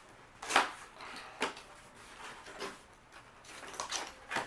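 Boxed items and packaging being handled during an unboxing: a handful of short knocks and rustles, the loudest about half a second in.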